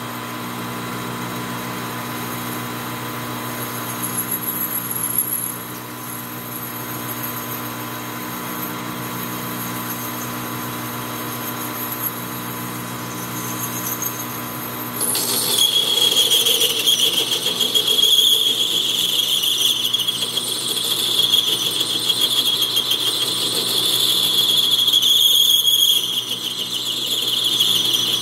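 Metal lathe running steadily while a cutting tool works a thin metal part. About halfway through, a loud high-pitched squeal from the tool on the work starts suddenly and keeps going.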